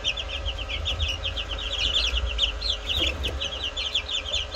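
A brood of young Silkie chicks peeping without pause: many short, high, slightly falling peeps, several a second, overlapping.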